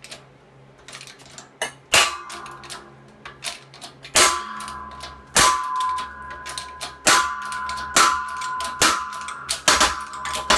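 Shop press forcing an axle out of a heated motorcycle ring gear: a series of sharp metallic bangs, one to two seconds apart, as the press fit gives way. Between the bangs the metal rings with a steady tone that lingers from about four seconds in.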